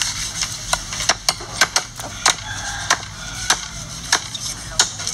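A cleaver chopping into a goat carcass on a wooden chopping block: about ten sharp chops at an uneven pace, one or two a second.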